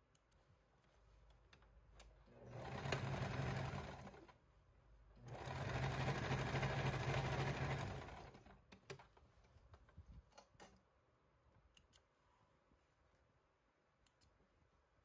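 Electric sewing machine stitching in two runs, the first about two seconds long and the second about three, with a short pause between. Afterwards come a few light clicks of thread snips.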